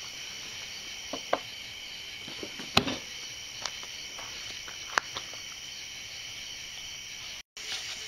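Steady chorus of night insects, crickets, with a few sharp knocks and clicks scattered through it, the loudest about three seconds in.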